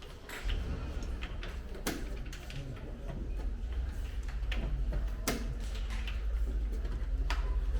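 A few sharp clicks, three of them clear, over a steady low hum.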